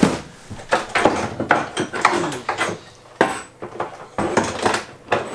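Rummaging in a low cupboard of a workshop: hard objects and parts clattering and knocking against each other and the wooden shelf, with cardboard rustling. A thump right at the start as a cardboard box is set down on the floor.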